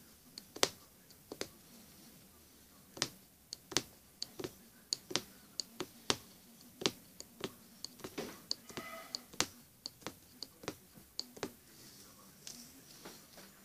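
Punch needle punching through fabric stretched tight in a wooden embroidery hoop: a sharp click with each stroke, irregular, one or two a second.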